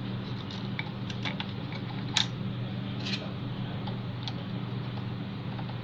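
Scattered light clicks and taps from printer parts being handled during disassembly, about half a dozen at irregular intervals with one sharper click about two seconds in, over a steady low hum.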